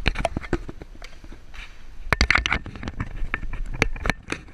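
Irregular close clicks, knocks and rubbing from a handheld camera being carried and repositioned.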